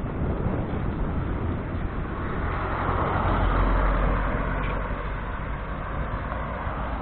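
Road vehicle noise: a steady rumble and hiss that swells to a peak about halfway through and then eases off.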